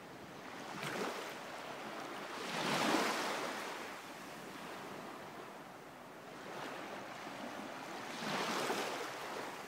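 Waves washing, swelling and ebbing in slow surges, the loudest about three seconds in and another near the end.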